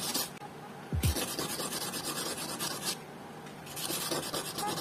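A small piece of glass rasping back and forth on sandpaper in spells of a second or two, with short pauses between, as it is ground down to shape a replacement phone camera lens. A low thump about a second in.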